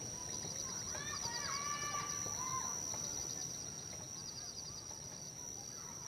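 Natural outdoor ambience: a steady high insect drone with rows of short repeated trills, and a few bird calls between about one and three seconds in.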